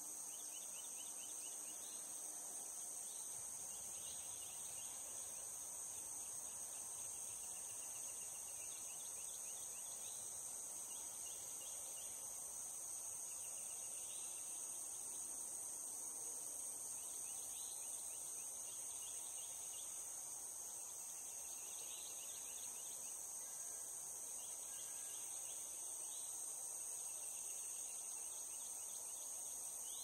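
Steady, unbroken high-pitched drone of cicadas, with short trills repeating about every two seconds over it.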